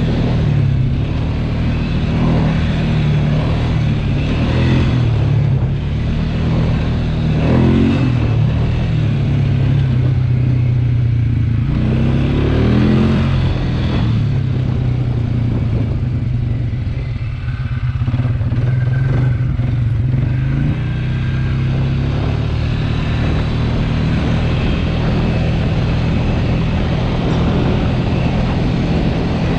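ATV engine running steadily while riding, with brief revs about seven seconds in and again about twelve seconds in.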